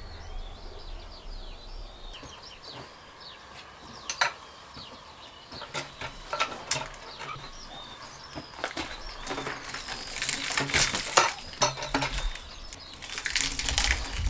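Sharp metal clanks and knocks of a cant hook biting into and levering a large log, scattered at first and coming thick and fast in the last few seconds. Small birds chirp in quick falling notes through the first half.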